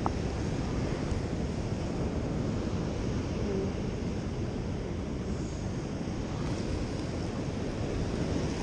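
Pacific surf breaking, a steady rushing wash, with wind rumbling on the microphone.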